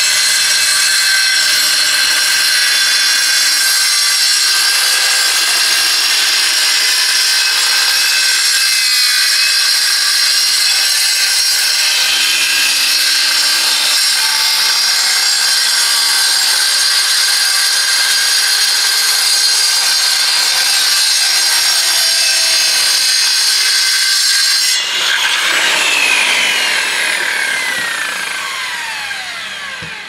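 A handheld electric power tool running steadily as it cuts. About 25 seconds in it is switched off, and its whine falls in pitch as it spins down.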